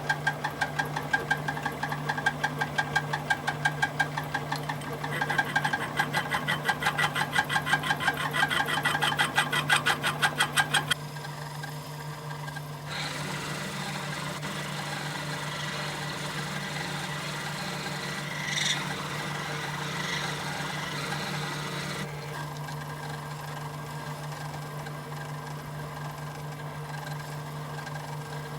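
Metalworking machine tool running with a steady hum. For about the first ten seconds a fast, regular chatter of a cut runs over it, then stops abruptly, leaving the steady running sound.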